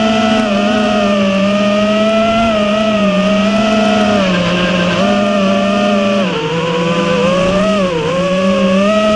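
FPV quadcopter's brushless motors whining, the pitch holding fairly steady and then dipping and climbing back several times in the last few seconds with the throttle.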